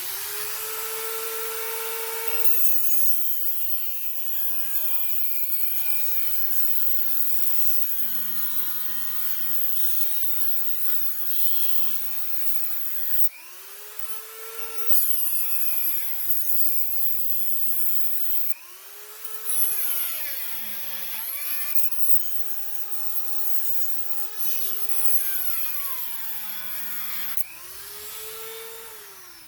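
Small variable-speed grinder with a thin cutoff wheel cutting steel, the motor's whine sagging and recovering again and again as the wheel bites, with brief letups. It is grinding through the tack welds holding the old electric PTO clutch.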